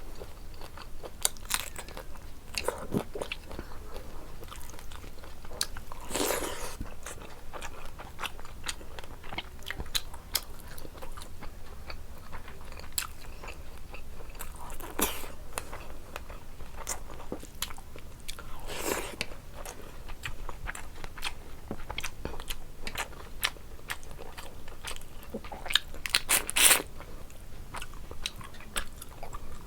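Close-miked eating: steady wet chewing with frequent small clicks, broken about four times by louder crunchy bites, the loudest near the end.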